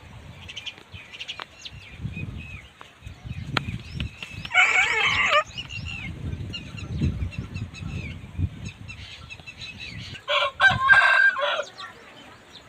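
Aseel rooster crowing twice, each call about a second long and some five seconds apart, with small birds chirping faintly in the background.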